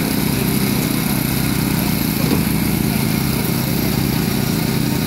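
Small engine of a portable hydraulic power unit for rescue tools running steadily at a constant speed, driving the extrication tool's hoses.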